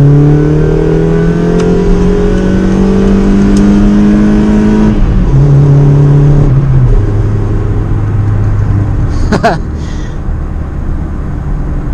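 Honda Civic's 75-horsepower four-cylinder engine running through a broken exhaust, heard from inside the cabin. The note climbs steadily under acceleration for about five seconds, then falls back in two steps and settles to a lower, steady drone. A brief high squeak comes about nine seconds in.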